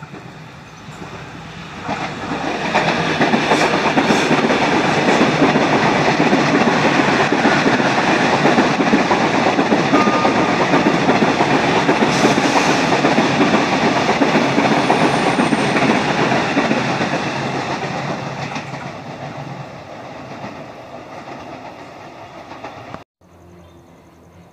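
KRL electric commuter train passing close by: the wheels running on the rails build up over the first few seconds, stay loud for about a quarter of a minute, then fade as the train draws away.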